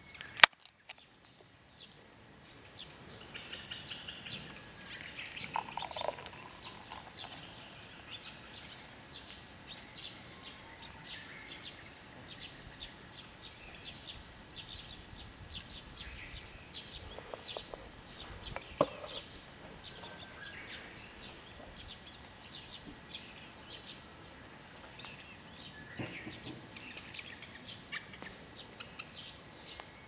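A beer can's pull-tab snaps open with a sharp click right at the start, over birds chirping throughout. About halfway through, beer is poured from the can into a glass.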